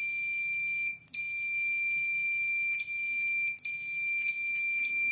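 Piezo buzzer of a homemade 433 MHz alarm sounding one steady, high-pitched tone as the alarm is triggered. The tone breaks off briefly about a second in and dips again a little past three and a half seconds, with faint clicks over it.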